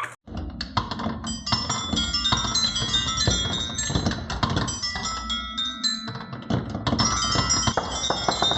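Many marbles rolling and clacking down a wooden HABA marble run, a dense clatter of clicks mixed with short, high ringing tones.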